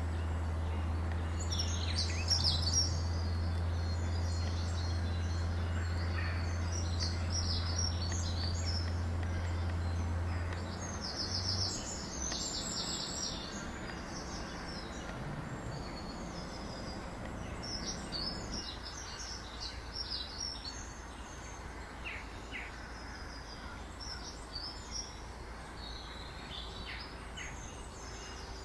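Small birds chirping in short high calls scattered throughout, over steady outdoor background noise. A low steady hum runs underneath and stops about eleven seconds in.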